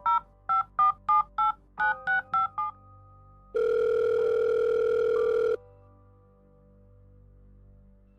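Phone keypad tones as a number is dialled, a quick run of about nine short beeps, then a steady ringing tone for about two seconds while the call goes unanswered. Faint background music runs underneath.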